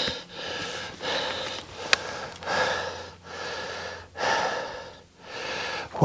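A man breathing hard and close to the microphone, with about one breath each second, and one sharp click about two seconds in.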